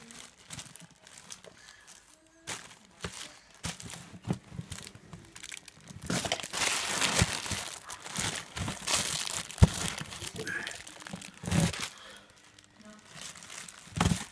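Thin plastic bags crinkling and rustling as they are handled and pushed about, louder and denser for a few seconds in the middle, with one sharp knock about two-thirds of the way in.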